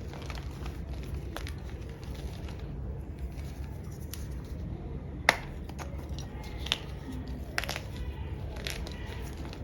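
Block of black-dyed gym chalk being crushed: scattered sharp cracks and crumbling, the loudest about five seconds in, over a steady low background hum.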